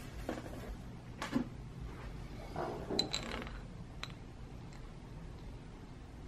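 A few soft taps and one small ringing clink of tableware, about three seconds in, as a honey jar and utensil are handled.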